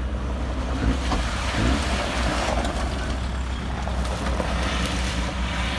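A 4x4 SUV's engine working hard as it climbs a steep, loose rock slope, heard from a distance over a steady low rumble.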